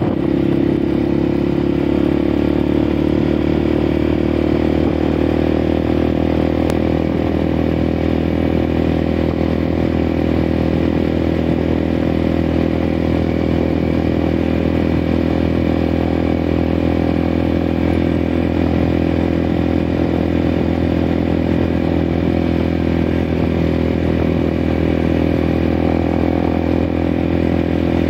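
Motorcycle engine running at a steady cruising speed while being ridden, its note holding an even pitch.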